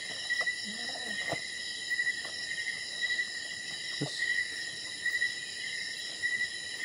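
Night insects trilling steadily at a high pitch, the chorus pulsing without a break, with a couple of faint clicks.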